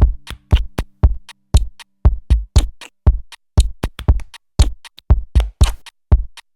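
Electronic background music: a drum-machine beat of kick and snare hits playing on its own, without the synth chords that surround it.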